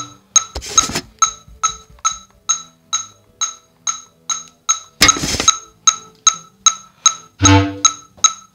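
Electronic metronome clicking steadily, about two and a half clicks a second. Between the clicks there are a few short bass clarinet sounds: a brief note near the start, a breathy burst about halfway through, and a short low note near the end.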